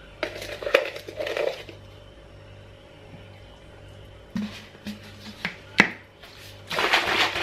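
Pre-workout powder shaken out of a plastic tub into a plastic shaker cup, a short gritty rattle, followed by a few clicks and knocks as the tub is put down and the cup is lidded. Near the end the shaker cup is shaken hard, a dense fast rattle.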